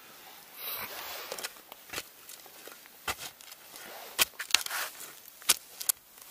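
Scattered sharp clicks and knocks with brief scraping, from digging in the ground and handling the finds pulled out of it.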